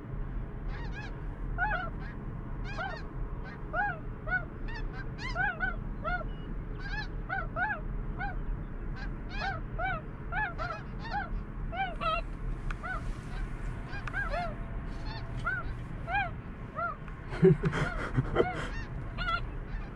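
Snow geese calling overhead: a continuous chorus of short, high, nasal honks at many pitches, overlapping. Near the end, a brief louder bump and rustle.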